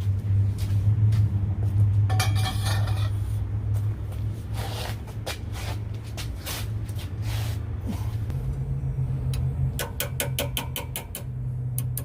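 A steady low machine hum runs underneath, stepping up slightly in pitch about eight seconds in. Over it a ratchet clicks as a bolt is tightened with a 33 mm socket, in a fast run of even clicks near the end.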